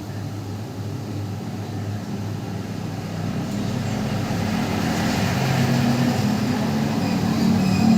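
A vehicle engine running, a steady low hum that grows gradually louder.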